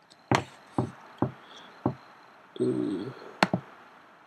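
A run of sharp single clicks, four in the first two seconds and one more about three and a half seconds in, from a computer mouse being clicked close to the microphone. A short low hum of a voice comes between them.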